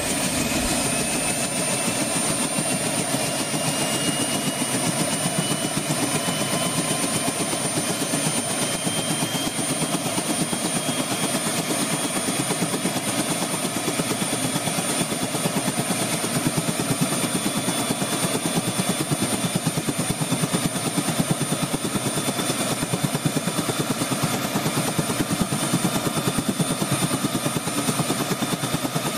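Allison Model 250 (Rolls-Royce M250) turboshaft engine running steadily: a rushing turbine noise with high whines, one of which slowly rises in pitch.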